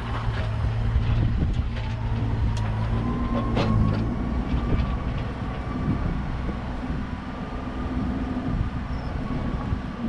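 An engine running steadily at idle, with a faint tone that creeps slightly upward. A few sharp knocks come through about two and a half and three and a half seconds in.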